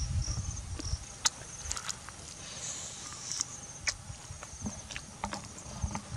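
Insects chirping in a high, pulsing trill, with scattered crisp clicks of someone chewing fried fish.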